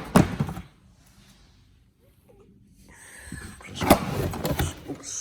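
A cardboard box being handled: two sharp knocks at the start, a quiet pause, then cardboard rubbing and scraping that grows louder, with another knock about four seconds in.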